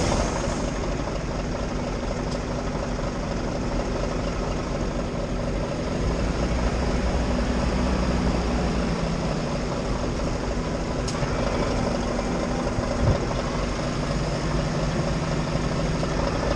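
Heavy diesel engine idling steadily, getting slightly louder about six seconds in, with one short sharp click later on.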